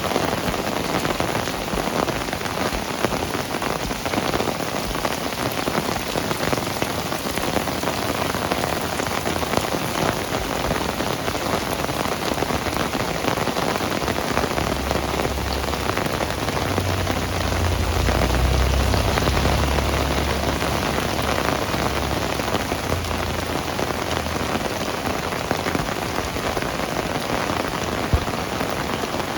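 Heavy rain falling steadily, a dense hiss of drops. About halfway through, a low rumble swells for several seconds and fades.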